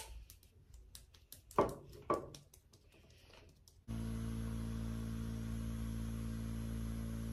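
Soft clicks and taps of fingertips and a small glass dropper bottle as face oil is patted onto the skin. About four seconds in, a steady hum of several held tones cuts in abruptly and stays level.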